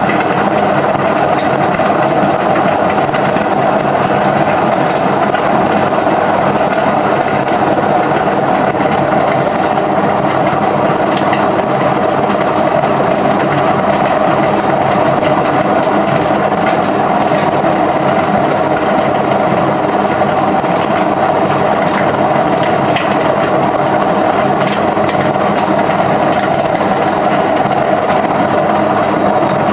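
Hotpoint Aquarius WMF520P washing machine on a fast spin, a loud steady racket with a faint high whine that dips slightly near the end.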